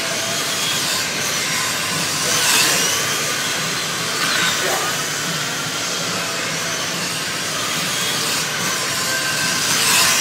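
Slot cars' electric motors whining as they race around a large routed slot car track, swelling as cars pass close by, loudest about two and a half seconds in and near the end. A falling whine as one car goes by about four and a half seconds in.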